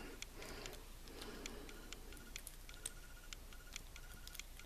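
Faint, regular ticking, about two ticks a second, with soft handling rustle.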